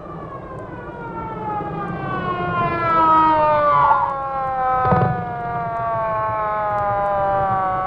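American police siren wailing, its pitch falling slowly and steadily, over a low vehicle rumble; it grows louder over the first few seconds, and a short sharp knock comes about five seconds in.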